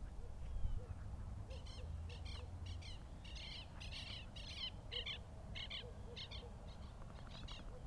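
A bird calling in a quick series of short, harsh high notes, several a second, starting about a second and a half in and carrying on, over a low steady background rumble.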